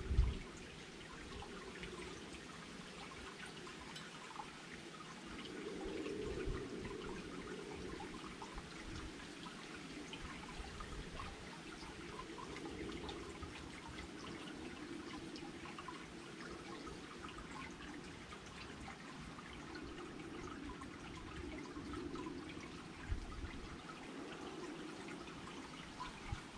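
Small tiered garden fountain trickling steadily, with occasional low rumbles of wind on the microphone.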